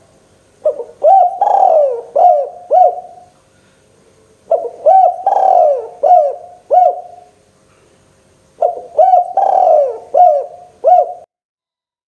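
Spotted dove (tekukur) cooing: three phrases of five or six rhythmic coos each, about four seconds apart. The sound cuts off abruptly near the end.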